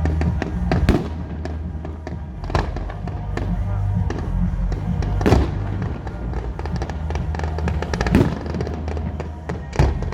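Fireworks bursting in the sky, five sharp bangs a few seconds apart, over music playing with a steady bass line.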